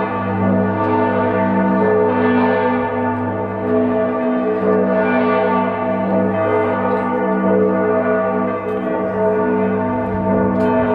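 The church bells of Giotto's Campanile ringing loudly close by: repeated strokes, roughly one a second or so, blending into one continuous humming peal of many overlapping tones.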